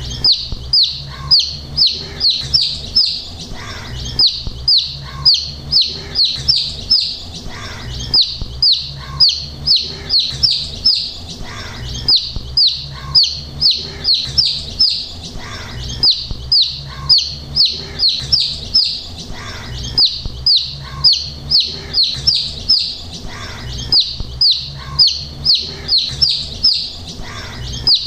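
Domestic chicks peeping: short, high, falling peeps in quick runs. The same few seconds of peeping seem to repeat over and over like a loop.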